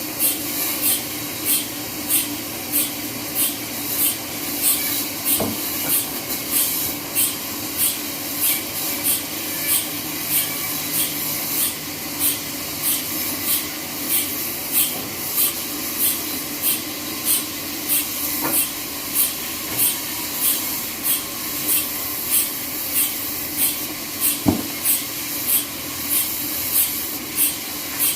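Sawmill band saw running, with a steady hum and a high hiss that pulses evenly about three times every two seconds, broken by a few short knocks.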